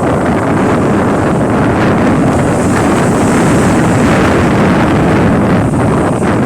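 Strong wind buffeting the microphone: a loud, steady rushing noise, heaviest in the low end.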